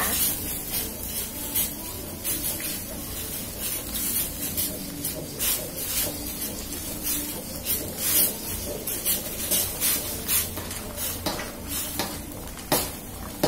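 Spatula scraping and knocking irregularly against a metal wok as a thick chicken sauce is stirred over high heat, with a faint sizzle underneath; tapioca-starch slurry is being stirred in to thicken the sauce.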